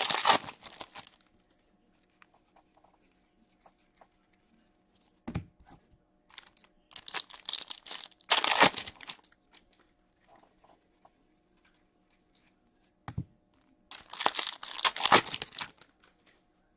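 A hockey card pack's wrapper being torn open and crinkled in the hands, in several short bursts of tearing and crackling with quiet gaps between them.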